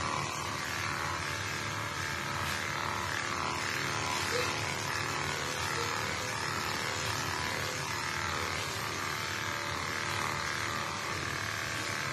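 Electric pet hair clippers running with a steady buzz as they are pushed through a long-haired cat's fur.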